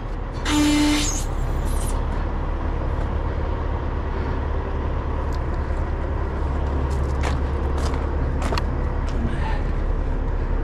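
Heavy truck's diesel engine idling steadily, with a short hiss of air about half a second in and a few sharp clicks later on.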